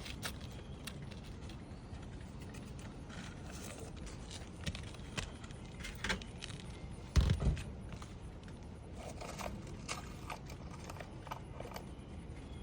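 Light scraping and scattered taps of a replacement asphalt shingle being worked into place on a roof, with one heavier thump about seven seconds in.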